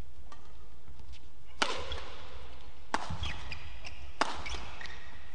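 Badminton rackets striking a shuttlecock during a doubles rally: three sharp hits about a second and a quarter apart. Brief shoe squeaks on the court follow the hits.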